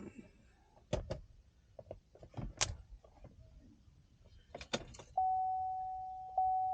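A few sharp clicks and knocks of plastic parts and a cable plug being handled, then a vehicle warning chime starts, a single steady tone that fades and is struck again about a second later.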